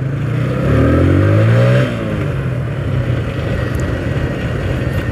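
TVS Apache RTR 160 2V's single-cylinder engine accelerating hard from low speed, its note rising for about a second. About two seconds in the revs fall away sharply, and the engine then runs on steadily.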